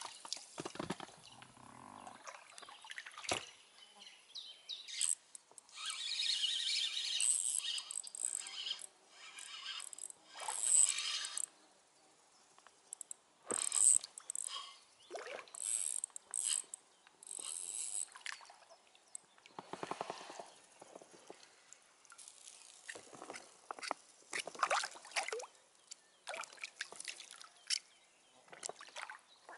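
Irregular splashes, rustles and knocks of fishing with a spinning rod, with a hooked chub splashing at the surface near the end.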